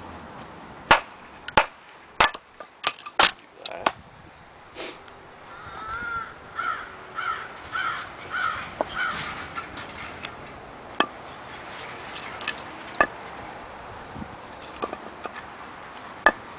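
A camp hatchet chopping into wood on a chopping block: about seven sharp strikes in the first four seconds, and a few scattered knocks later, the last near the end. In between, a crow caws about six times in a row.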